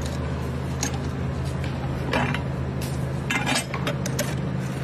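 Brass hand-lever juice press clinking and clanking as it is worked to squeeze pomegranate halves: several sharp metallic knocks, two of them longer and rougher, over a steady low hum.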